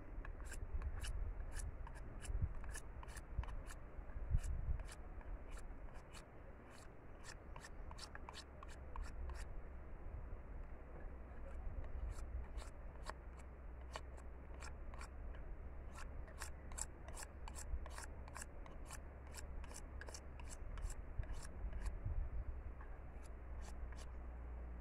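A long bolo knife shaving a thin bamboo stick into a skewer: quick, short scraping strokes of the blade along the stick, about two to three a second, stopping for a moment about halfway through and then starting again.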